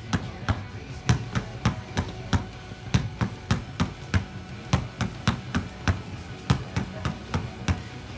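A basketball dribbled hard on a concrete court, about three to four bounces a second in a steady rhythm.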